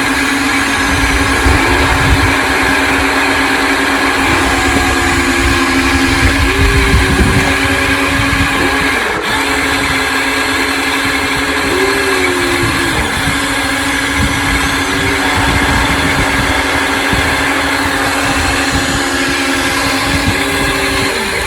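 A radio-controlled hydraulic excavator's pump motor runs with a steady whine throughout. A second, higher motor whine rises and falls every few seconds, and the pitch dips briefly several times as the hydraulics are loaded.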